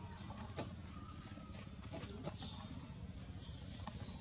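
Short high bird chirps repeating every second or two over a steady low background hum, with scattered faint clicks.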